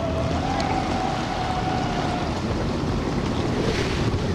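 Motorboat running on open water, with wind buffeting the microphone and water rushing past. A steady tone holds for about the first two seconds, then stops.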